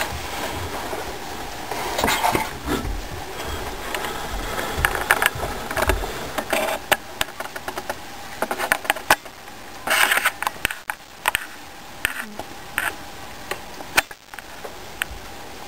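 Close, irregular rustling of a fleece blanket with scattered small clicks and taps as pet ground squirrels shift about in their fabric nest. A louder rustle comes about ten seconds in.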